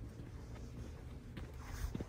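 Soft footsteps of someone walking on a nature trail, over a steady low rumble, with a brief rustle near the end.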